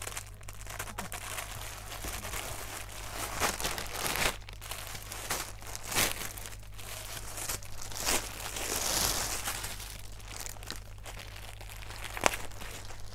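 Clear plastic sari packaging crinkling and rustling as a net sari is pulled out of it and unfolded, with irregular sharp crackles and a longer rustle about nine seconds in.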